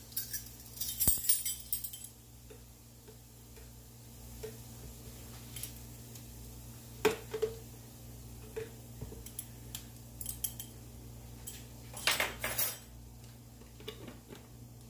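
Metal spoon clinking and scraping against cookware as minced garlic is spooned into a stainless steel skillet. There is a cluster of clinks at the start, scattered taps in the middle and another loud cluster about twelve seconds in, over a low steady hum.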